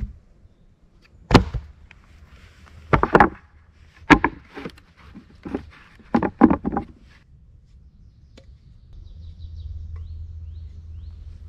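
A series of irregular sharp knocks and thuds, some single and some in quick clusters, over about seven seconds, followed by a faint low steady rumble.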